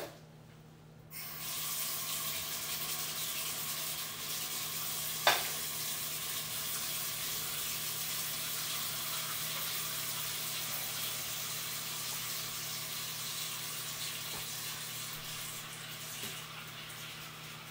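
Bathroom sink faucet running steadily into the basin, turned on about a second in and growing a little fainter near the end, with a single sharp clink about five seconds in.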